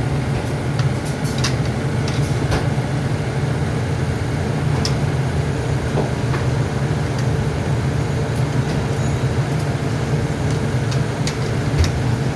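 Steady low mechanical hum of a kitchen fan, with scattered light clicks and taps.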